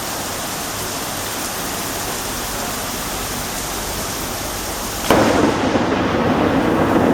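Steady rain hiss, then about five seconds in a sudden loud thunderclap that rumbles on, with another sharp crack near the end.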